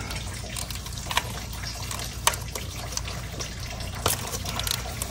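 Several sharp metallic clicks as the 10 mm coil-pack bolts on a Toyota 5.7 V8 are cracked loose with a wrench and extension, over a steady hiss.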